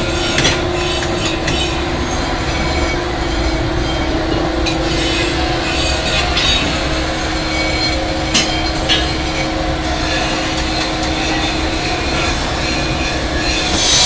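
Steady machine drone with a constant hum, broken by a few sharp knocks of tools on the moulds; near the end a louder hiss sets in.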